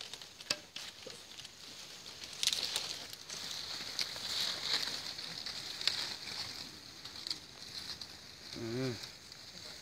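Dry coconut palm fronds rustling and crackling as they are pulled aside to get at a python, with a brief human voice near the end.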